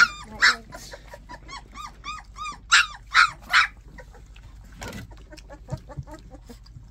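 Three-to-four-week-old puppies whimpering and squealing, many short high cries in quick succession that thin out after about four seconds. A single knock comes about five seconds in.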